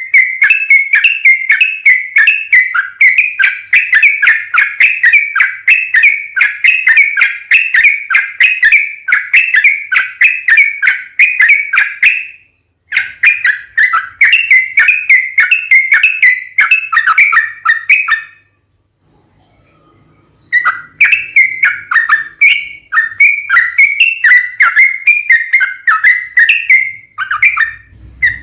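Yellow-vented bulbul (trucukan) singing a long, rapid chattering song of quickly repeated whistled notes. It breaks off briefly about halfway through, goes silent for about two seconds, then carries on.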